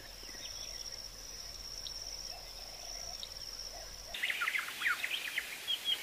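Birds chirping and calling over a steady high insect drone. About four seconds in, the drone stops and louder, rapid chirps and quick falling whistles take over.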